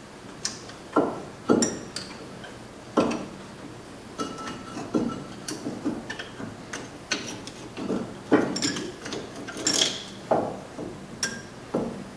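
Flat-blade screwdriver prying the outer brake pad and its retaining clips off a 2003 Ford Focus front brake caliper: irregular metal clicks, knocks and clinks, the loudest about a second in and around eight and ten seconds in.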